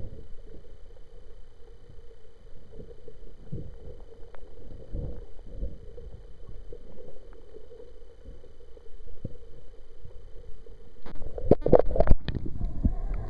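Muffled underwater sound picked up by a camera held below the surface: a low uneven rumble with soft knocks and a faint steady hum. About eleven seconds in, louder knocks and splashing begin as the camera is lifted out of the water.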